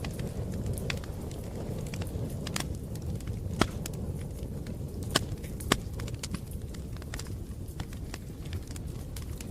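Wood campfire burning: a steady low rumble of flames with scattered crackles and snaps, and a few louder pops in the middle.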